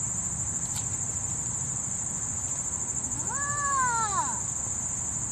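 Steady, high-pitched trilling insect chorus. About three seconds in, a brief wordless call rises and then falls in pitch over it.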